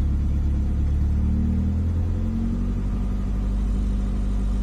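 Classic Mini's swapped engine running at about a thousand rpm, a steady low rumble whose speed picks up a little about two seconds in.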